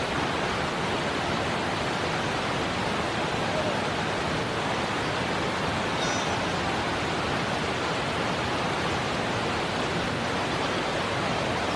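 Steady, even rushing noise with no distinct events, and a faint brief high chirp about halfway through.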